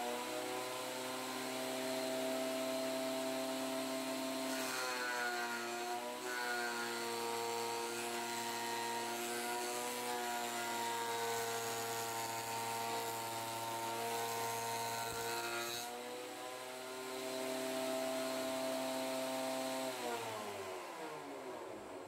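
Scheppach HMS 850 planer-thicknesser running with a steady whine, its cutter head planing a wooden board from about five seconds in to about sixteen, the pitch dropping under the load of the cut. Near the end the pitch falls steadily as the machine winds down.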